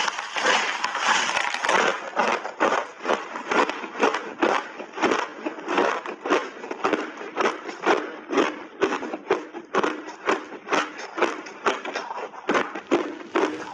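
A big bite into a block of refrozen crushed ice, a dense burst of crunching for about two seconds. Then steady crunching as the ice is chewed, about three crunches a second.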